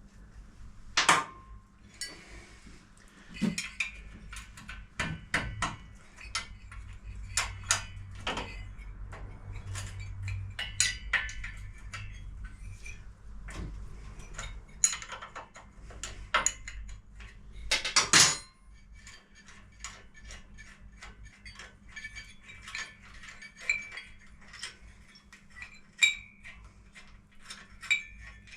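Spanners working on the nuts and bolts of a Harley-Davidson WLA engine mount: scattered metal clinks, clicks and knocks, with the two loudest knocks about a second in and just past the middle. A faint low hum sits beneath for much of it.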